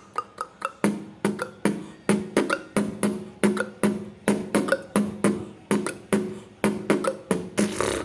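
Vocal beatboxing: a steady beat of sharp mouth clicks and short pops imitating water drops. Deep kick-drum thumps join about a second in.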